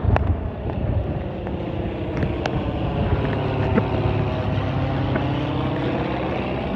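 Light aircraft's propeller engine droning steadily as it flies low overhead, its pitch bending slightly as it passes.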